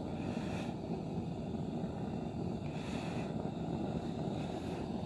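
Blowtorch flame running steadily as it is played over wooden planks to scorch them lightly.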